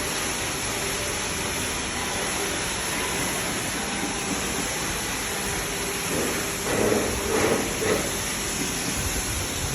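A steady hiss, with a few brief voice-like sounds about two-thirds of the way through.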